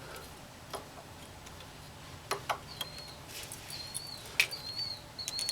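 Scattered sharp clicks and light metal taps while working on a car's wheel hub. From about halfway in, a short high chirp repeats roughly twice a second.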